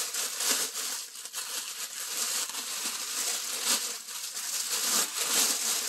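Plastic mailer bag crinkling and rustling as hands handle it and pull it open.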